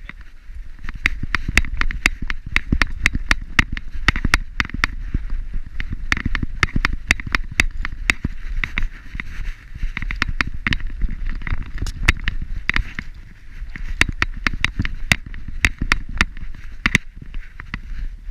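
Metal leash snap clip and collar ring clinking irregularly, a few times a second, as the dog walks. Under it runs a low rumble and rustle of the camera jostling on the dog's harness. The clinking stops near the end.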